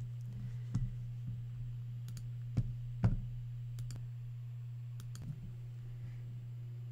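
Steady low electrical hum with a handful of short clicks from computer mouse or keyboard use scattered through, the two loudest about two and a half and three seconds in.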